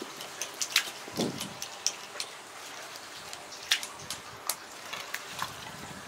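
A cormorant grabbing and handling a live carp on wet concrete: irregular sharp clicks and wet slaps from bill, fish and feet, with a short low sound falling in pitch about a second in.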